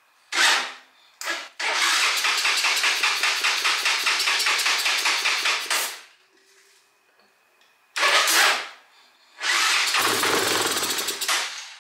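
Honda FourTrax 300 ATV's single-cylinder engine being cranked on its electric starter with starting fluid: short hisses of the aerosol spray into the intake, about four seconds of even rapid cranking, another spray, then a second cranking in which the engine briefly fires on the fluid. It will not yet run on its own fuel.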